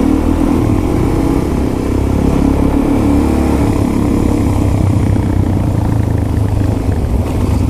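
Motorcycle engine running steadily while riding at road speed, its pitch shifting slightly partway through, with wind and road noise over it.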